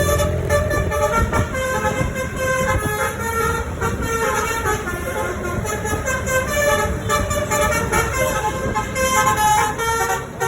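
Basuri V3 multi-tone 'telolet' bus horn playing a tune of quickly changing notes, with the bus engine running underneath.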